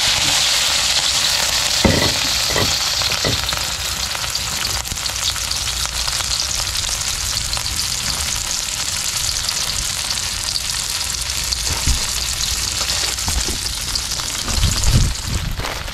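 Vegetables stir-frying in hot oil in a pan: a loud, steady sizzle, with a few knocks of the stirring utensil against the pan about two seconds in, again near twelve seconds and near the end.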